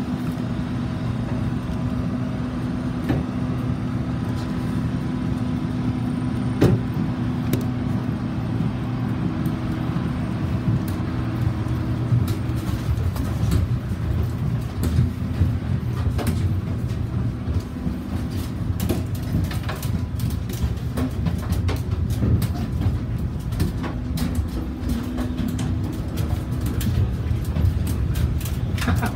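Steady low mechanical drone of airport aircraft and ground equipment, holding a few constant tones. Scattered footsteps and clicks of passengers walking come in more often in the second half.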